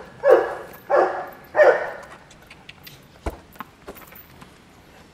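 Boerboel mastiff panting: three heavy, breathy pants about 0.7 s apart in the first two seconds, then stopping, with one sharp click about three seconds in.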